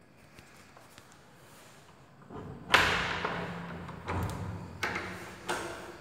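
An interior door being handled and opened by its lever handle: a loud thud about halfway through, then several sharper knocks and clicks over the next few seconds.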